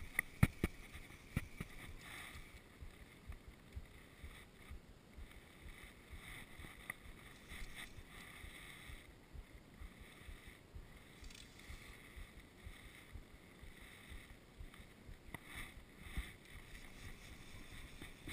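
Faint, steady outdoor ambience picked up by an action camera, with a few sharp clicks and rubs in the first two seconds as cloth brushes against the camera.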